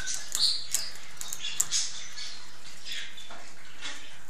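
A white pet squirrel gnawing on food, heard as a run of small sharp clicks over a steady background hiss, with a few short high chirps.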